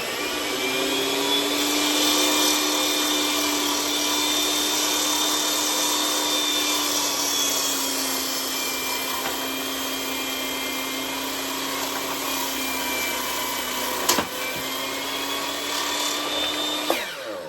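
Makita 16-inch beam saw running and cutting through stacked 2x4s: a steady motor whine that sags slightly in pitch under load through the middle, with one sharp knock about 14 seconds in. Near the end the motor winds down quickly as the electric brake stops the blade.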